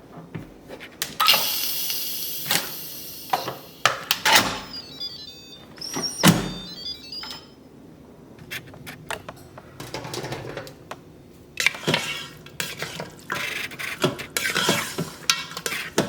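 Pots, a lid and metal utensils knocking and clattering in irregular bangs, with a few seconds of hiss starting about a second in.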